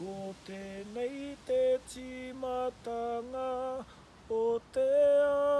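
A man singing a Māori waiata unaccompanied, a run of short notes in phrases, then a long held note near the end.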